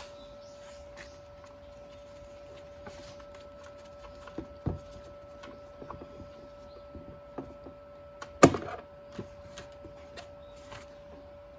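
Scattered light clicks and knocks from a loosened oil drain plug being unscrewed and pulled out of the engine's oil pan, with one sharp, much louder knock about eight and a half seconds in. A faint steady hum runs underneath.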